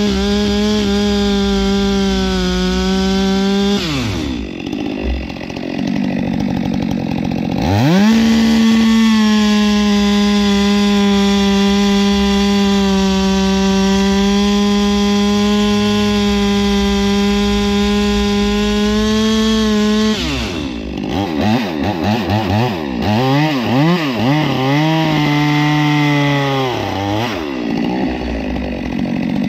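Stihl MS 462 single-cylinder two-stroke chainsaw running at full throttle, cutting rounds from a log. The engine drops back about four seconds in and revs up again about four seconds later to cut steadily for some twelve seconds, then is revved up and down several times in quick succession.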